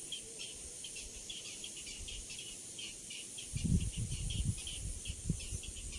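Insects chirping in short, high pulses, several a second, with no pause. From about halfway through, louder low thumps and rustles of handling close to the microphone come in over them.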